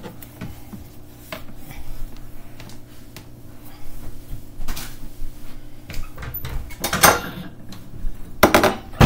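Kitchen counter handling sounds: light knocks and clinks of dishes and utensils, with two louder brief rustling swishes near the end as a small spill is cleaned up with a paper towel.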